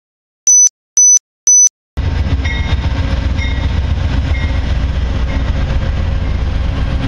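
Three short high beeps about half a second apart. Then, from about two seconds in, Amtrak GE P42DC Genesis diesel locomotives heading a bilevel passenger train roll slowly past with a steady low engine rumble. A faint high tone repeats about once a second and dies away.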